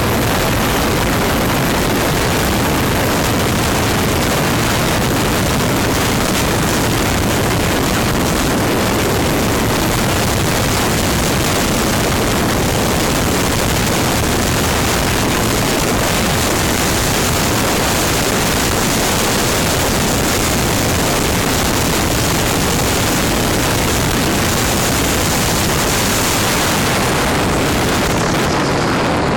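Loud, steady rush of wind on the microphone and water along the hull of a Shannon-class lifeboat running at speed (about 25 knots), with its engines underneath. The highest hiss drops away near the end as the boat runs up onto the beach.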